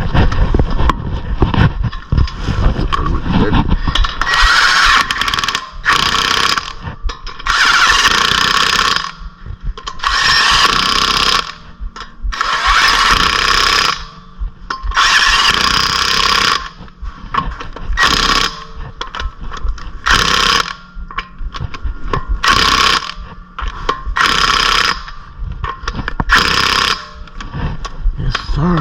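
Impact wrench tightening wheel lug nuts in about a dozen short bursts of a second or so each, with pauses between them as it moves from nut to nut in a crisscross pattern.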